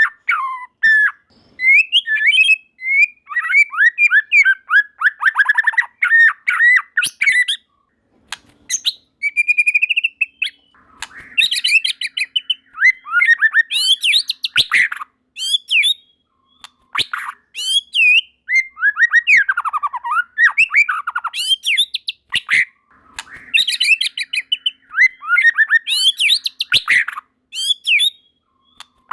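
White-rumped shama (murai batu) singing a loud, varied song of rapid whistled phrases, trills and sharp notes, delivered in bursts with brief pauses between them.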